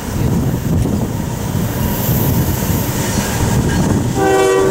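Freight train rolling by with a steady rumble and wheel clatter; about four seconds in, a diesel locomotive's air horn starts sounding a held multi-note chord.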